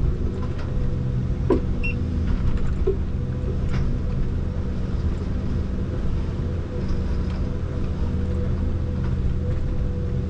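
Forest harvester's diesel engine and hydraulics running steadily under load, heard from inside the cab, with a few sharp knocks and clicks as the harvester head works a tree.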